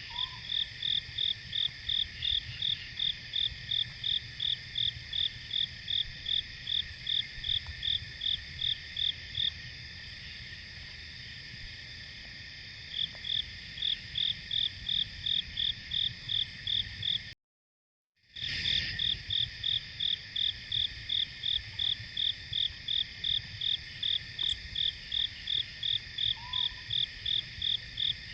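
Cricket chirping in an even rhythm of about three chirps a second over a steady high-pitched insect chorus. The chirping pauses for a few seconds in the first half. Everything cuts to silence for under a second just past halfway, then carries on as before.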